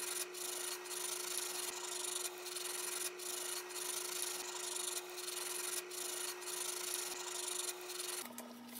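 Sandpaper rubbed back and forth over a metal fishing spoon lure, a continuous scratchy rasp broken by brief pauses between strokes, as the spoon's surface is sanded down again for replating.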